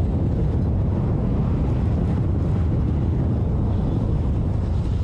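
Strong tornado wind buffeting the microphone: a steady, loud low rumble.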